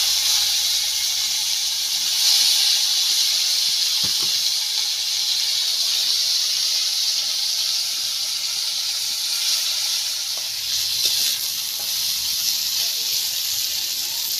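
Bitter gourd slices frying in hot mustard oil in a kadai: a loud, steady sizzling hiss.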